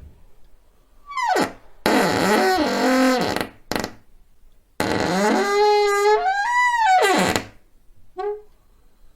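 A door swinging open on creaky hinges: two long hinge creaks whose pitch wavers up and down, each lasting two to three seconds, then a short squeak near the end.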